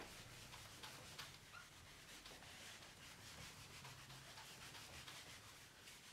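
Near silence with faint rubbing and light scratching, as of a pen writing out a formula.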